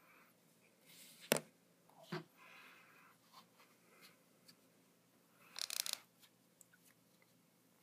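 Hands handling a small plastic vial and a cotton wad: a sharp click about a second in, a softer knock, scratchy rustling, and a short crackling rustle near six seconds in.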